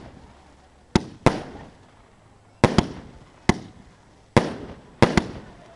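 Fireworks display: aerial shells bursting in a series of about eight sharp bangs at irregular intervals, some in close pairs, each followed by a fading echo.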